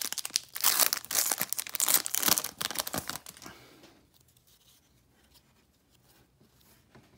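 A crimped foil wrapper on a Topps baseball card pack is torn open and crinkled by hand. The ragged tearing and rustling stops about three seconds in.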